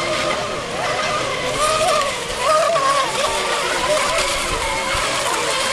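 Several electric radio-controlled racing monohulls running at full speed. Their motors whine, the pitch wavering up and down as the boats pass and round the buoys, over a steady hiss of spray.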